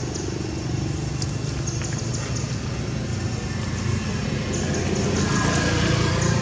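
Steady low rumble of motor-vehicle traffic, swelling about five seconds in.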